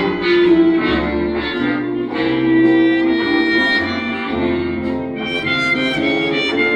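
Old-time jazz music playing: a melody of held notes over a stepping bass line.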